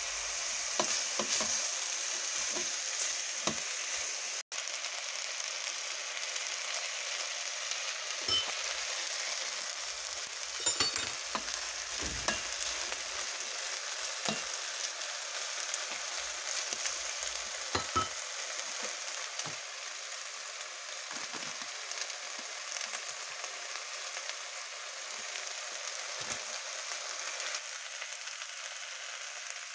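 Food sizzling in a hot frying pan, a steady hiss, with occasional short knocks of a utensil stirring against the pan.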